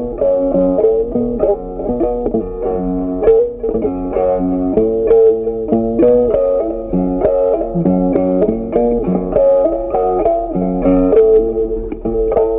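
Background music: a plucked guitar playing a melody of changing notes.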